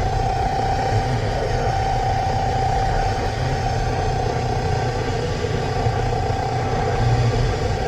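A steady single-pitched tone held over loud low rumbling noise, unbroken throughout.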